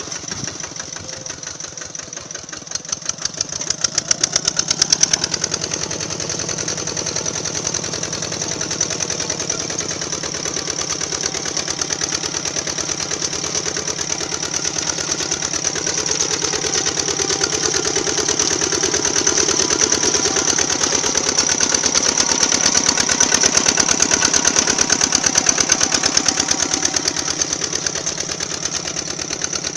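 Small engine of an RC two-wheel tractor model running with a fast, even putter. It gets louder about four seconds in and again in the second half.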